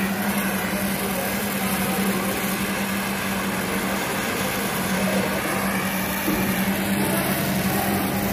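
Oxy-fuel brazing torch flame hissing steadily as copper pipe joints on an air handling unit coil are brazed, over a steady low machine hum.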